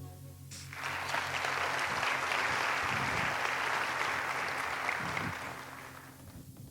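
The song's last held chord dies away, then an audience applauds, starting about a second in and fading out near the end.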